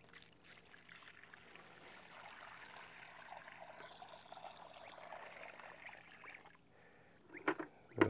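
Water poured from a bucket into a shallow rubber feed pan: faint, steady splashing that stops about six and a half seconds in. A brief sharp sound follows near the end.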